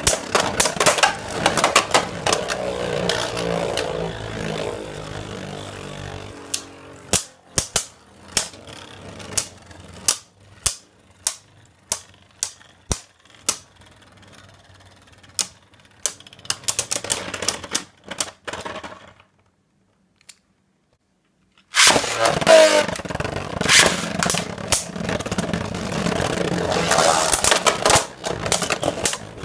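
Two Beyblade Burst tops, Vise Leopard and Leopard L4, whirring and clashing in a plastic stadium. The dense clatter thins to sharp single clicks about every half second as the tops slow down. The sound drops out for about two seconds, then a fresh launch brings loud, rapid clashing again.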